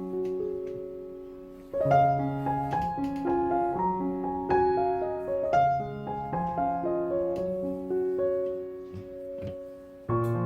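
Background piano music: single notes moving over sustained lower notes. The phrase fades and restarts about two seconds in, and again near the end.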